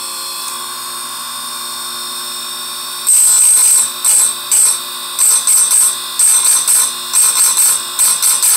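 Electric chainsaw-chain sharpener with its grinding wheel spinning at a steady hum, then from about three seconds in the wheel is dipped onto a saw-chain cutter tooth in a quick series of short grinding bursts, about two a second: light touches that sharpen the cutter without burning it.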